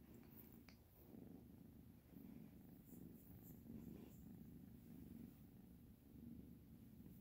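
Kitten purring softly, a low rumble that swells and fades with each breath about once a second.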